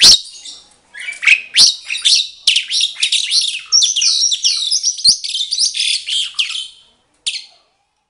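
Asian pied starlings singing a fast, varied run of whistles and chattering notes, broken by a few sharp clicks, with a last short burst just before it stops. This is the answering song that breeders take as a sign that a pair is compatible.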